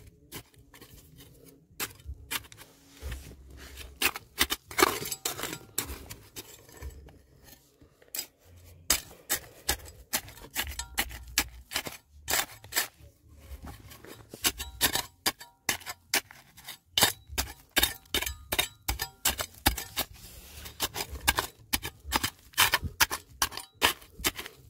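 A metal digging tool strikes and scrapes hard stone, making repeated sharp clinks at an uneven pace, at times several a second, some with a short metallic ring.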